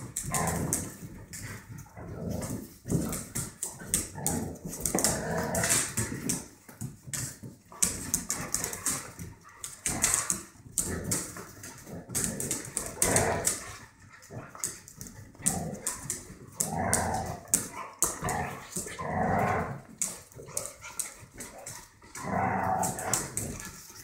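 Puppies and an adult dog playing, barking and yipping in short irregular bursts every second or two.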